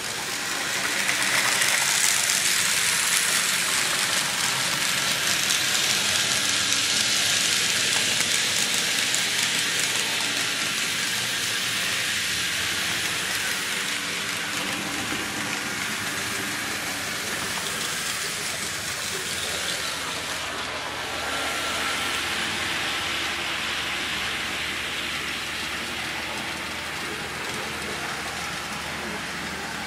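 HOn3 scale model diesel locomotive running: a steady engine hum under a constant hiss, which swells over the first couple of seconds and then slowly eases off.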